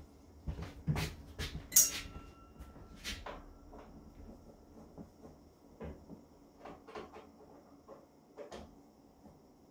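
Sheet-metal breaker panel cover being opened and handled: a run of knocks and clicks, with a sharp metallic clank about two seconds in that rings briefly, then lighter scattered taps.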